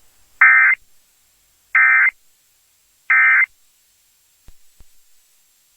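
Emergency Alert System end-of-message code: three short bursts of buzzy digital data tones, about a second and a third apart, marking the close of the alert. Two faint clicks follow near the end.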